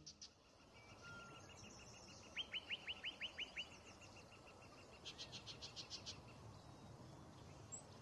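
Yellow-breasted chat singing: a run of about eight quick down-slurred whistled notes about two seconds in, then about five seconds in a faster run of higher, clipped notes.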